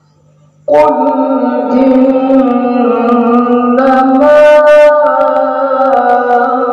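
A man's voice in melodic Quran recitation (tilawah) through a microphone, coming in suddenly and loudly about 0.7 s in after a near-silent pause. It holds long, ornamented notes on a vowel that step up and down in pitch.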